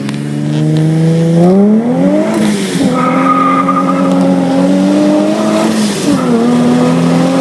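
Supercharged 2003 Nissan 350Z's 3.5-litre V6 under hard acceleration. The revs climb quickly, fall away sharply about two and a half seconds in at an upshift, climb more slowly in the next gear, and fall again at a second shift about six seconds in.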